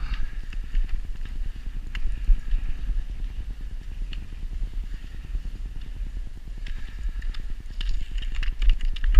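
Steady low rumble of movement over packed snow, with small crunches and knocks that grow busier near the end.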